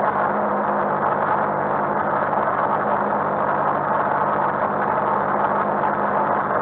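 Rally car's engine idling steadily, heard from inside the stripped cabin.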